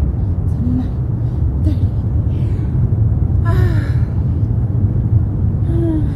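Steady low outdoor rumble, with a brief falling gasp about three and a half seconds in as a woman lowers herself out of a plank.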